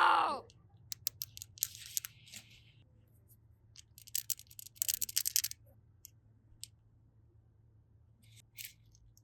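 Close-up crinkling and tearing, like plastic wrap or packaging being pulled apart, in two crackly bursts with scattered sharp clicks between them. A falling pitched tone fades out in the first half second.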